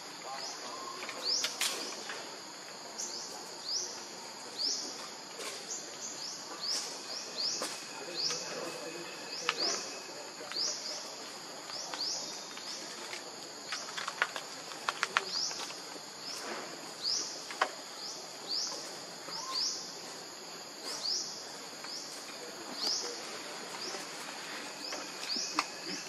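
Outdoor wildlife ambience: a high chirp that drops in pitch, repeated about once a second, over a steady high buzz of insects. About halfway through comes a quick run of sharp clicks.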